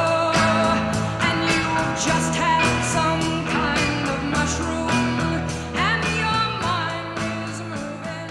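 A song with a steady beat, bass, guitar and a singing voice, getting gradually quieter near the end as it fades out.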